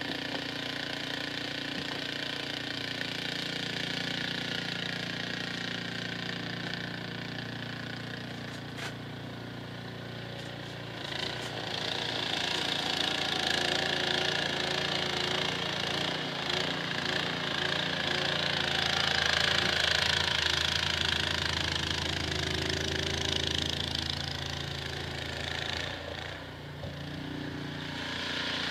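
Snowblower engine running steadily. From about eleven seconds in it grows louder, with a rushing hiss over the engine note, and it eases back a couple of seconds before the end.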